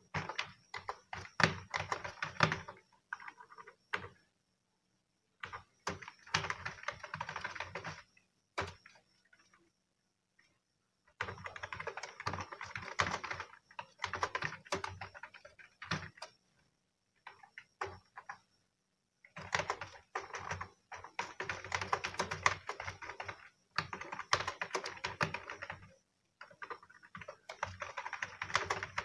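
Typing on a computer keyboard: fast runs of key clicks in bursts of a few seconds, broken by short pauses.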